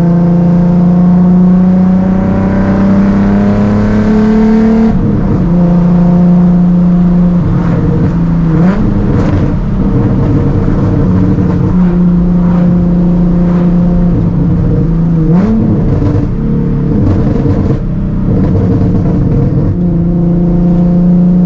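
Nissan 370Z's 3.7-litre VQ V6 through a titanium Tomei cat-back exhaust while driving: a steady drone that climbs slowly in pitch, changes abruptly about five seconds in, then holds steady with brief swings in revs about eight and fifteen seconds in.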